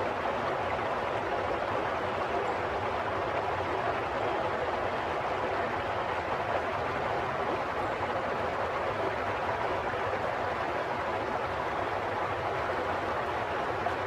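Steady rush of flowing water, even and unbroken, with no splashes or changes.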